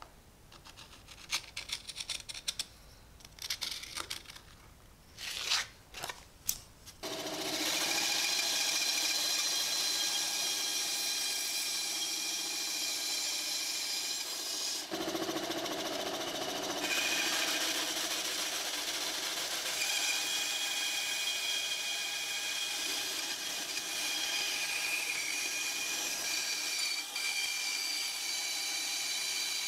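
Short scratchy strokes of a carpenter's pencil tracing around a round template on wood. About seven seconds in, a bandsaw comes in abruptly and runs steadily with a whine, its blade cutting through the wood blocks.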